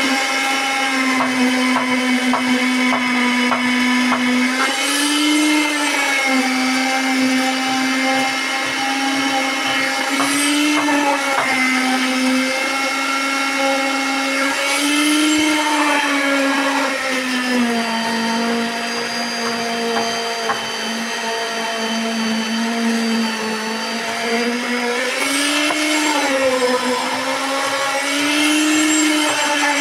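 Concrete needle (poker) vibrator running steadily while compacting freshly poured concrete in a slab form. Its hum briefly rises and dips in pitch every few seconds and settles a little lower about two-thirds of the way through.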